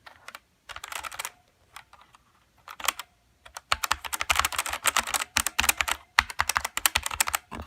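Typing on a Rapoo KX wireless mechanical keyboard: a few short bursts of key clicks, then rapid, continuous typing from about three and a half seconds in.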